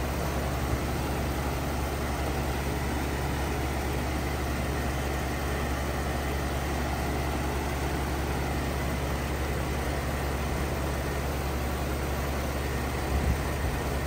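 Carrier Comfort 25HCE 3-ton heat pump outdoor unit running steadily in heat mode: a low, even hum from its LG scroll compressor under the rush of the condenser fan.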